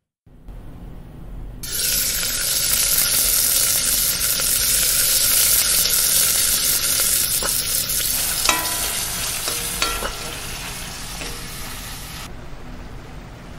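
Food frying in hot oil in a steel kadai on a gas stove, a loud steady sizzle. It starts abruptly about two seconds in and dies down near the end, with a few light clicks along the way.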